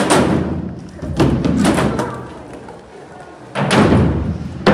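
Carver skateboard rolling on a wooden ramp: a low wheel rumble broken by several heavy thuds, one right at the start, two close together about a second in, and another near the end, as the board hits and turns on the ramp.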